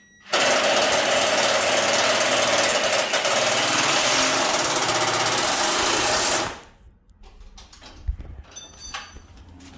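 A power tool running loud and steady for about six seconds, then cutting off abruptly.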